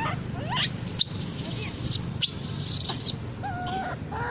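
Baby long-tailed macaque giving short, wavering tonal whimper calls, the clearest one near the end, over a steady low hum. A few sharp high chirps and clicks come in the middle.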